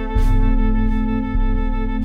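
Slow instrumental background music of long held notes, with a new note coming in just after the start and the bass shifting about a second and a half in.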